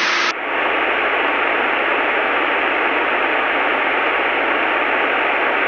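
Steady radio static hiss over the aircraft's headset audio, with a faint steady tone running through it, starting just after the beginning.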